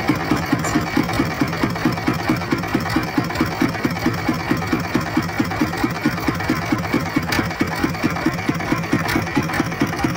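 Petter diesel engine idling on the boat's deck, a steady knocking beat of about five firing pulses a second.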